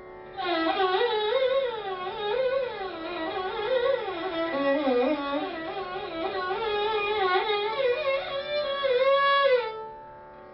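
Violin played in Indian classical style: one bowed melodic phrase that glides up and down between notes, over a faint steady drone. The violin stops shortly before the end, leaving only the drone.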